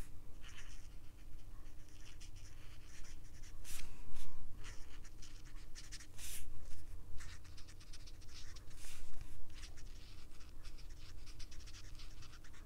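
Marker tip scratching in short, irregular strokes across card as stamped flowers are coloured in.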